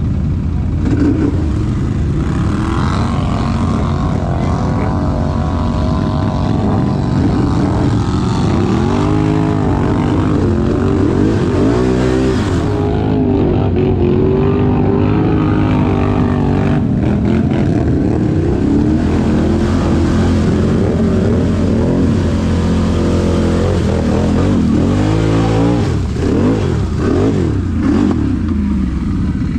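ATV engine running hard under load in muskeg mud, the revs swelling up and dropping back several times.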